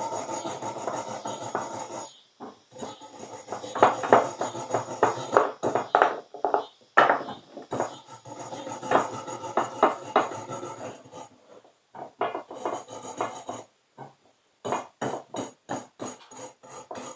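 Wire brush scrubbing rust off the metal threads of a yard hydrant part, in quick irregular scratching strokes with a few short pauses.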